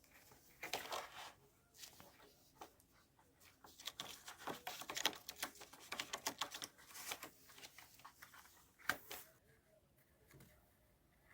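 Irregular light clicks, taps and scratchy rustles in quick clusters, thickest through the middle, with one sharper click near the end.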